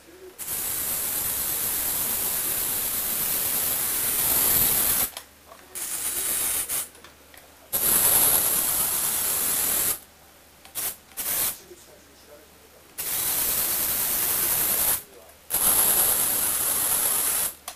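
Lego Technic tractor's small electric motor and plastic gearbox whirring with a high hiss as it drives, switching on and off in spells of a few seconds, with a couple of short blips around the middle.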